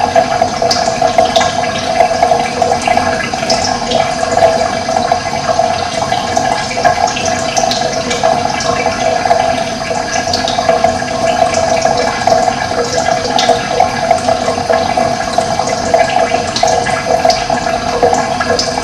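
Running water flowing steadily, with short, high bird chirps scattered over it.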